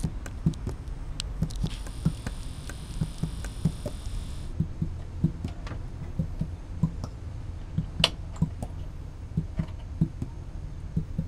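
Irregular small clicks and taps, with one sharper click about eight seconds in, from fingers working a 1/2 AA lithium PRAM battery out of its plastic holder on a Power Mac G4 motherboard, over a low steady hum.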